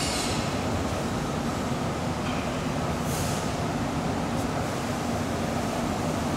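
Stick-welding power source running with no arc struck: a steady transformer hum and cooling-fan noise. A couple of brief scuffs are heard, near the start and about three seconds in.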